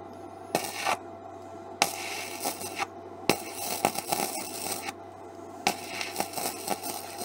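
Gasless flux-core MIG welding on roughly 1 mm sheet steel with an Edon SmartMIG-275 inverter welder: the arc crackles and spatters in short runs, pausing briefly about three seconds and five seconds in.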